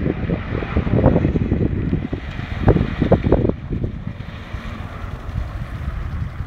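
Wind buffeting the microphone in uneven gusts, with louder flares in the first half that ease off near the end.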